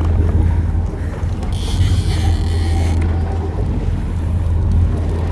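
Sport-fishing boat's engine running steadily with a low drone, under wind and water noise on the microphone, with a rush of hiss for about a second and a half near the middle.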